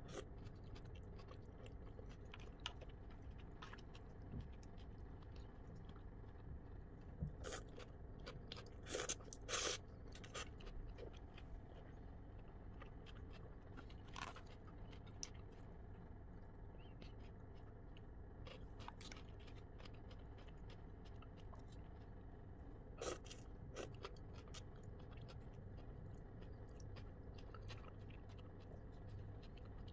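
Faint chewing of cold noodles and crunchy vegetables, with a few sharp clicks and crunches standing out, most of them about a quarter to a third of the way in and again about three quarters of the way in.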